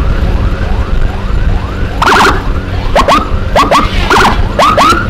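Electronic emergency siren in a fast repeated yelp. About two seconds in, a louder siren joins with short rising whoops and sharp blasts, over a steady low rumble of wind and road noise.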